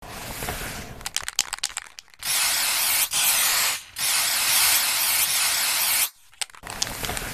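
Aerosol spray-paint can: the mixing ball rattles as the can is shaken, then three hisses of spray, the last about two seconds long, and more rattling near the end.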